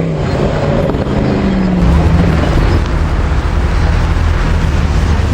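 A car's engine running loud with a deep low rumble, its pitch easing down slightly about a second in, then holding steady.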